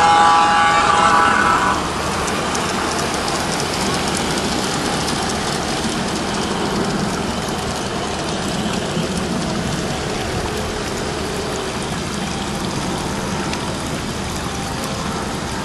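Garden-scale model trains running on outdoor track: a steady rolling hiss with faint fine clicking. A held horn tone stops about two seconds in.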